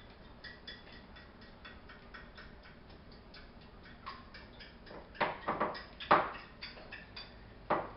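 Fork beating eggs in a bowl: quick, even clicks of the fork against the bowl, about four or five a second, with a few louder knocks in the second half.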